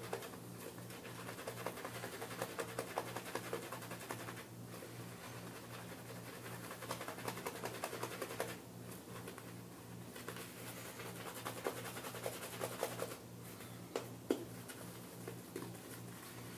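Wet shaving brush bristles scratching and swishing as they work shaving-soap lather that has just had water added, with a few short pauses between bouts of brushing, over a low steady hum.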